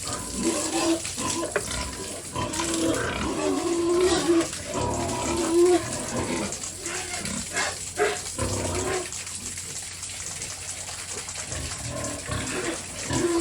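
Large domestic pigs grunting, a run of short grunts coming thick in the first half and thinning out later, over a steady hiss of running water.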